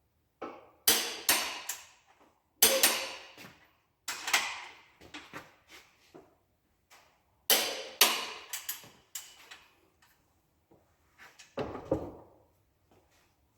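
Sharp metallic clanks and clicks of hand tools on the engine's main bearing caps while the bolts are torqued down, a dozen or so irregular strikes with brief ringing, bunched at the start and again midway.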